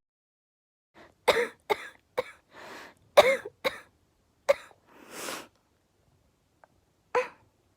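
A girl coughing: about seven short coughs in quick groups, with two longer breaths drawn between the groups, then a pause and one more cough near the end.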